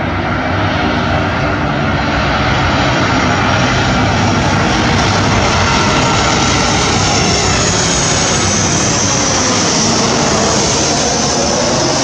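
Boeing 737 airliner passing low overhead on landing approach, its twin turbofan engines giving a loud, steady roar that swells over the first couple of seconds, with a high-pitched fan whine growing stronger in the second half.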